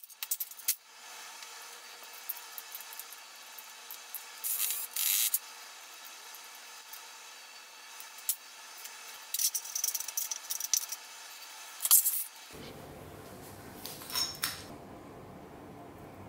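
A vacuum cleaner's electric motor being pulled apart by hand: scattered clicks, clinks and short scrapes of its metal parts, the sharpest click about twelve seconds in. Near the end a low steady background noise comes in.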